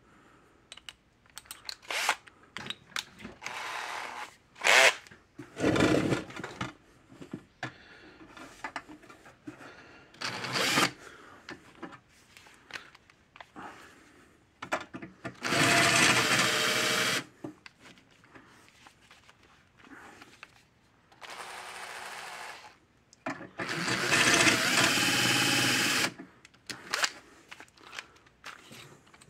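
Cordless drill running in three short runs of one to two seconds each, the middle one quieter, drilling a small pilot hole in the fence charger's metal housing for a self-tapping screw. Before the runs, clicks and knocks of the drill and housing being handled.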